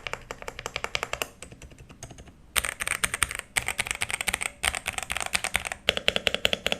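Modded Xinmeng X87 mechanical keyboard with Thunderobot brown (tactile) switches being typed on fast, in quick runs of keystrokes about a second long with short pauses between them, quieter for a moment about a second and a half in.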